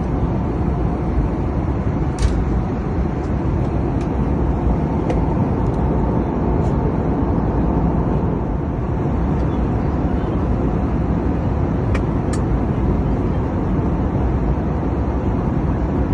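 Airliner cabin noise in flight: a steady, loud rumble of jet engines and rushing air, heaviest in the low end, with a few faint clicks.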